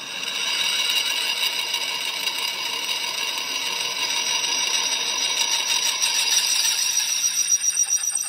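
A pillar drill's twist bit boring through the cast-iron flange of a truck brake drum: a steady, high metallic whine with chip rattle, starting suddenly as the bit bites.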